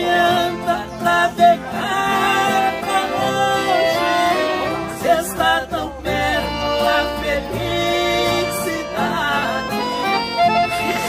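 Instrumental break of a sertanejo song played live on two piano accordions and two acoustic guitars, the accordions carrying a moving melody over the guitars.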